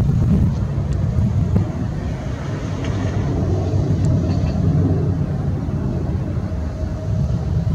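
Twin-engine Boeing 737 airliner climbing out after takeoff: a steady, low jet-engine rumble.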